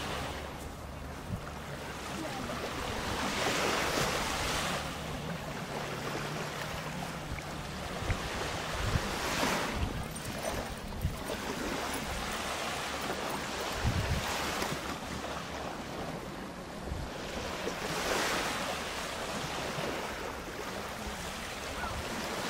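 Small waves washing onto a sandy beach, the surf swelling and fading about every four to five seconds, with wind rumbling and buffeting on the microphone.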